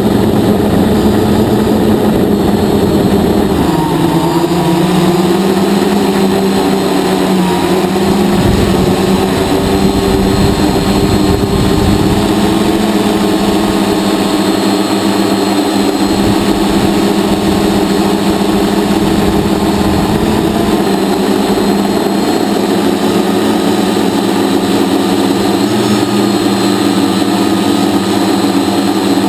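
Hexacopter's electric motors and propellers heard from its onboard camera: a loud, steady buzzing hum whose pitch dips and rises a few times as the throttle changes.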